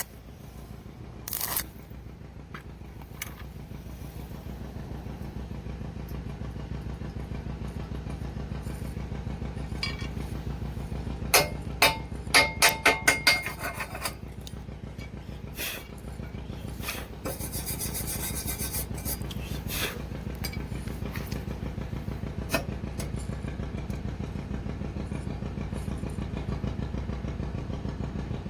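Stick (arc) welding: the electrode's arc running steadily with a rapid fluttering crackle. About a dozen seconds in comes a quick run of sharp knocks on metal.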